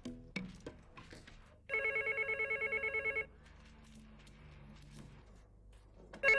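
White corded desk telephone ringing with a fast electronic trill, one ring about a second and a half long, then a second, shorter ring near the end as a hand reaches for it.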